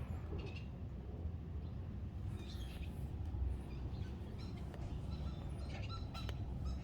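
Outdoor background: a steady low rumble with a few faint bird chirps and a couple of light clicks near the end.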